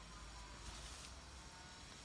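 Faint swishing and rustling of weeds and vines as they are hacked and pulled with a hand tool.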